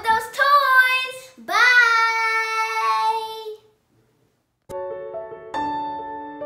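A child singing a few notes that end on one long held note. After a second of silence, piano music begins.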